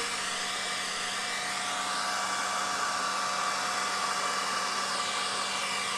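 Hair dryer running steadily on its low fan, cool setting, blowing air over wet acrylic paint to spread it out.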